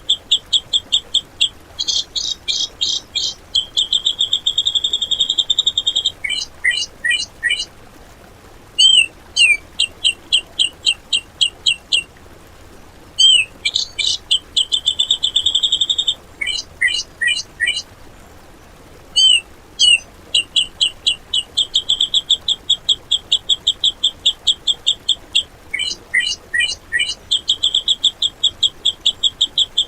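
Grey-cheeked bulbul (cucak jenggot) singing in fast, harsh staccato runs of repeated notes, about ten a second. The runs are broken by short clusters of quick dropping notes, and the same phrases come back again and again as in a looped training recording.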